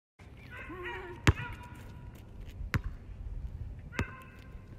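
Three sharp knocks about a second and a half apart, the first the loudest, over a low background rumble.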